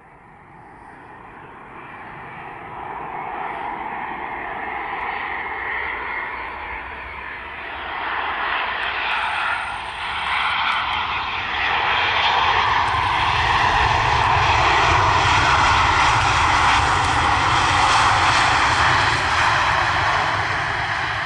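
A Boeing 737-400 freighter's CFM56-3 turbofan engines running on a landing approach. The jet noise grows louder over more than ten seconds as the aircraft comes close, holds its loudest for several seconds, then eases slightly near the end.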